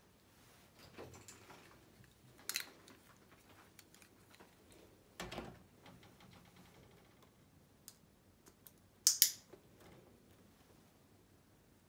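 Guinea pig moving about, making scattered small clicks and rustles. A louder, sharper knock comes about nine seconds in as it steps up onto the cloth-covered kitchen scale.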